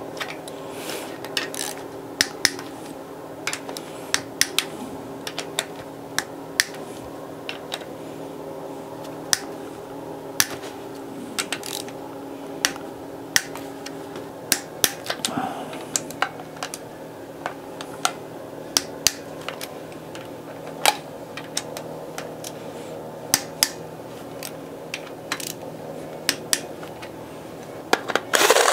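Hand ratchet wrench clicking and loose steel bolts clinking as the camshaft girdle plate bolts on a Honda R18 aluminium cylinder head are backed out. The clicks are sharp and irregular, about one or two a second, over a steady low hum, with a louder burst of noise right at the end.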